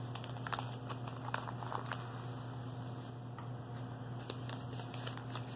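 Clear plastic bags crinkling as they are handled, with scattered light clicks, over a steady low hum.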